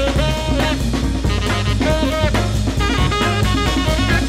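Upbeat swing-style jazz background music: a brass melody over a steadily beating drum kit.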